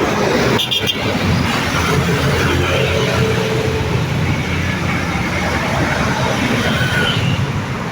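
Road traffic passing on a main road: vehicle engines and tyre noise in a steady rumble.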